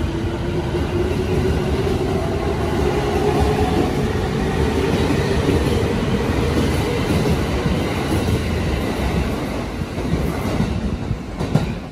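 Electric commuter train pulling out along the platform, with a whine from its motors rising slowly in pitch over the rumble and clatter of its wheels. The noise eases near the end as the last cars go by.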